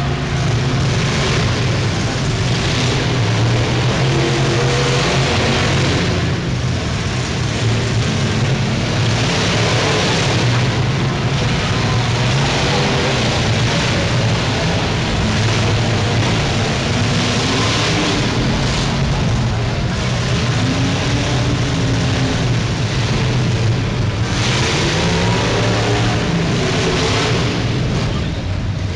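Engines of several demolition derby cars running loudly and revving as the cars push and ram into one another on dirt, swelling in loudness every few seconds.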